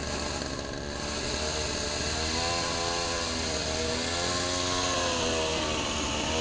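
Chainsaw engine running, its pitch rising and falling as it is revved.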